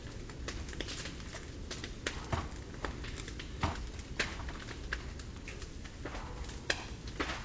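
A burning smoke shed crackling and popping: irregular sharp cracks, a few of them louder than the rest, over a steady low rumble of the fire.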